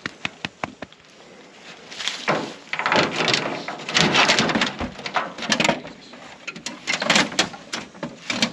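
Hound being loaded into an aluminum dog box from a pickup's diamond-plate tailgate: claws scrabbling and scraping on the metal, with knocks and rattles from the box and its door. A few sharp clicks come first, then a louder run of scraping and clattering from about two seconds in.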